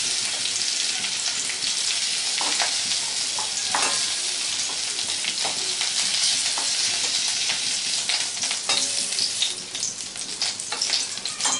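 Broccoli florets sizzling in hot mustard oil in a kadai. A metal spatula scrapes and clicks against the pan as the florets are lifted out, and the clicks come more often near the end.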